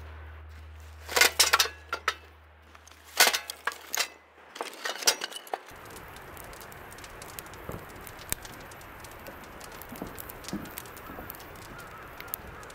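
Kindling and firewood clattering against a steel fire pit in a few quick bunches over the first five seconds. After that, a wood fire burns in the pit with a steady rush and scattered crackles.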